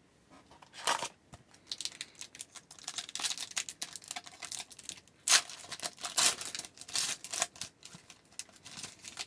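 Trading-card pack wrapper being torn open and crinkled, a run of irregular crackling rips, loudest about a second in and again in the second half.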